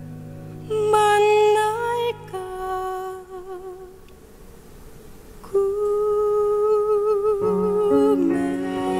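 Slow musical-theatre ballad: a high melody of long held notes with vibrato over soft accompaniment. It dips into a quieter lull midway, then a strong sustained note comes in about five and a half seconds in and steps down to a lower note near the end.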